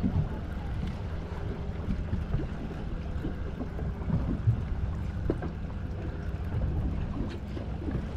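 Boat at sea: a steady low engine hum under wind buffeting the microphone, with a few faint short knocks.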